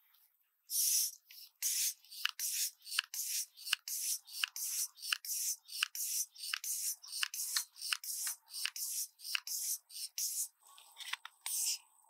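High-pressure hand air pump worked in quick strokes, a short hiss of air with nearly every stroke, nearly three a second, charging the airgun's air reservoir through its hose. The strokes stop about ten and a half seconds in.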